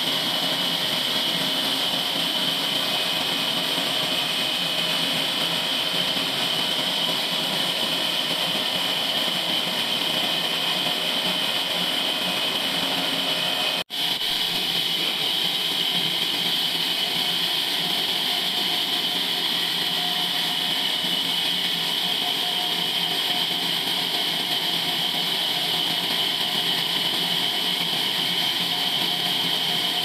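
Horizontal band sawmill running steadily, its blade cutting lengthwise through a large log, with a steady high whine over the motor noise. The sound breaks off for an instant about halfway through.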